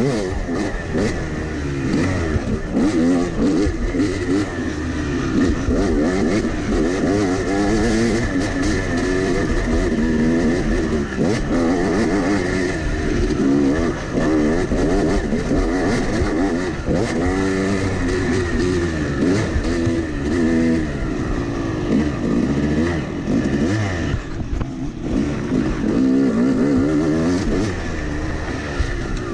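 Yamaha 250 two-stroke dirt bike engine, heard from on the bike, revving up and down again and again as the rider works the throttle, with a brief easing off near the end.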